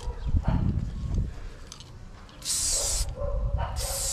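Hand spray bottle of thinned paint spraying in two hissy bursts, each under a second long, in the second half, after some low thumps in the first second.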